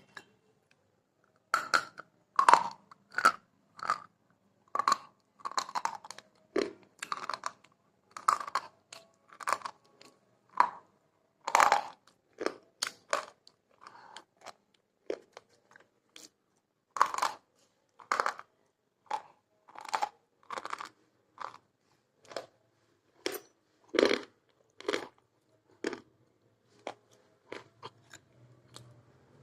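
Crunchy food being bitten and chewed close to the microphone: a long run of separate crisp crunches, one or two a second.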